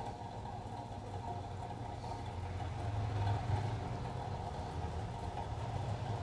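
Steady low mechanical hum, like a motor running, with no other event standing out.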